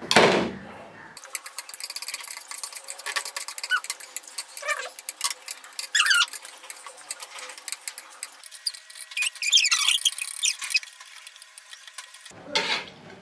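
Chopsticks clicking and scraping on bowls as noodles are eaten, with a few short high squeaks. It opens with one loud sudden sound, then sounds thin and tinny, with no low end at all.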